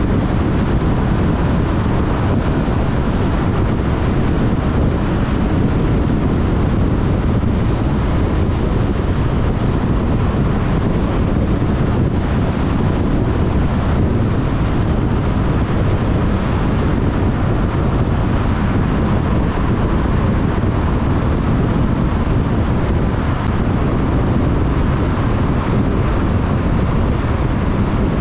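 A car driving at steady speed: continuous rumble of tyres on the road, with wind noise on the microphone of the car-mounted camera.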